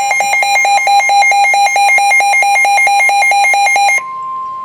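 Weather radio alert: a loud, rapid warbling alarm that flips quickly between two pitches, cutting off about four seconds in and giving way to a steady single-pitch tone, the NOAA Weather Radio warning alarm tone that comes before a warning is read.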